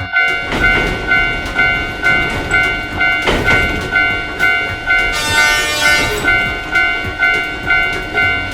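Japanese railroad crossing bell ringing its steady two-tone ding, about two and a half strikes a second, as a train rumbles through the crossing. A train horn sounds briefly about five seconds in.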